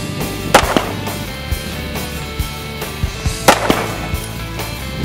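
Gunshots: two quick pairs of sharp, loud reports, the first pair about half a second in and the second about three seconds later, each with a short ringing tail. Background music plays steadily underneath.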